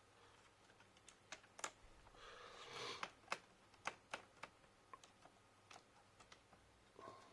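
Faint, scattered clicks and taps of small plastic laptop parts being handled and unclipped during disassembly, with a brief scraping rustle about two to three seconds in.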